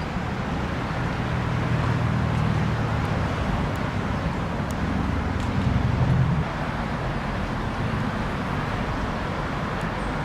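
Road traffic: a steady hum of passing cars, with a low engine rumble that builds and then drops away about six seconds in.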